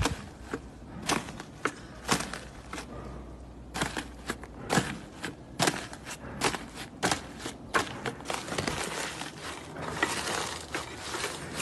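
Slime being pressed and squished by hand, giving a string of sharp, irregular pops and clicks. A denser run of crackling comes near the end.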